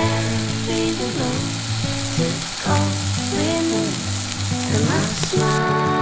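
Tomahawk steak sizzling as it sears on a hot griddle pan, under background music; the sizzle cuts off near the end.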